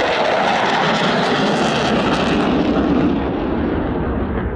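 Jet noise of a Dassault Rafale's twin M88 engines in afterburner as it passes and pulls away. The high hiss fades after about two and a half seconds, leaving a deepening low rumble.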